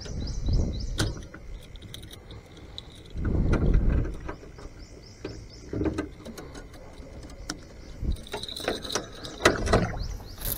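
Water splashing and sloshing against the side of a small aluminum boat, broken by scattered knocks and clicks on the hull, as a caught warmouth is handled at the gunwale and clipped on a stringer. The knocks come thickest near the end.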